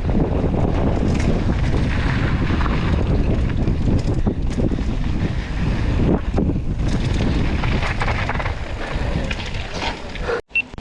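Strong wind buffeting the action camera's microphone during a mountain bike ride, a loud low rumble with scattered short knocks from the bike and trail. The noise cuts off abruptly near the end.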